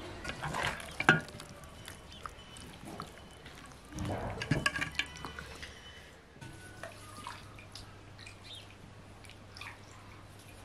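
Wet dripping and splashing with knocks of dishes, in two short bursts in the first half; after that it is quieter, with a faint steady low hum.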